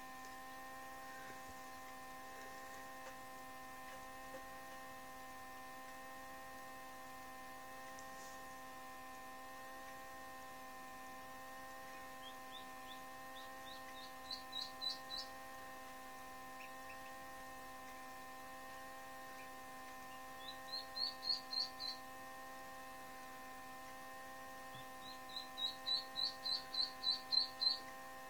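Duckling peeping in three quick runs of short, rising high peeps, the last run the longest and loudest, over a steady electrical hum.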